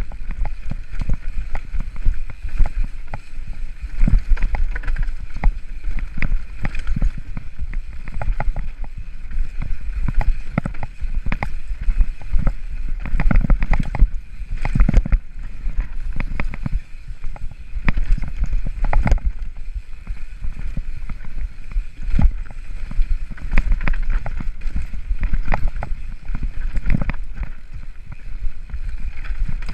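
Mountain bike ridden fast down a rocky, leaf-covered dirt trail, heard from a helmet-mounted camera: a low buffeting of wind on the microphone, tyres rolling over dirt and stones, and frequent rattles and knocks from the bike over bumps.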